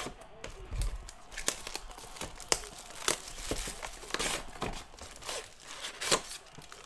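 Plastic shrink-wrap being ripped and crinkled off a sealed 2019 Panini Legacy football card box, then the cardboard box opened; irregular sharp crackles and tearing sounds.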